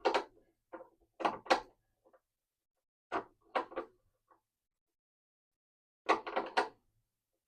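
Short clunks and rattles from the parts of a deer feeder being handled, in four brief clusters with pauses between.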